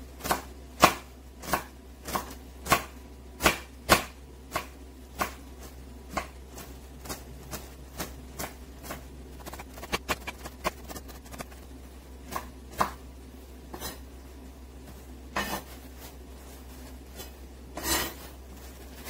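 A kitchen knife chopping garlic on a wooden cutting board: sharp knocks of the blade on the board, about two a second at first, then fainter and quicker as the garlic is minced fine, with a couple of louder knocks near the end.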